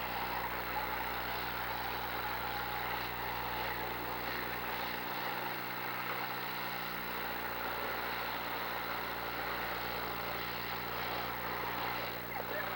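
Engines of demolition derby cars running, a steady din with no distinct crashes.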